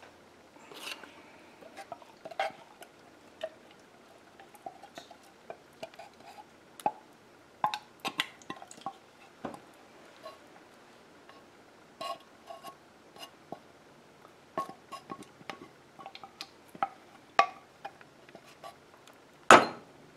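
Opened metal can of condensed cream of chicken soup knocked and tapped against a stainless steel saucepan to shake the thick soup out. Irregular light clinks and knocks, with one loud knock near the end.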